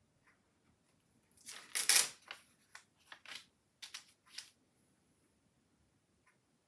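Tracing-paper template rustling as it is lifted and handled: one loud rustle about a second and a half in, then several short rustles over the next two seconds.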